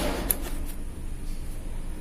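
A single light metallic click as the coil springs are hooked onto the shoes of a motorcycle centrifugal clutch, with quieter handling of the metal parts over a low steady hum.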